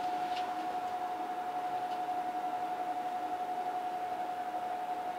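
A steady, unchanging single-pitched whine over a faint even hiss, with a couple of faint clicks about half a second and two seconds in.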